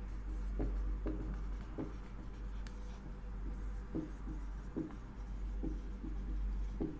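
Marker pen writing on a board: quiet, irregular short strokes and taps as words are written, over a steady low hum.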